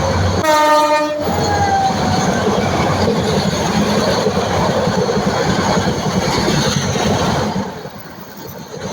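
A fast-moving train: its horn sounds once briefly about half a second in, then the steady noise of the running train, which drops away sharply near the end.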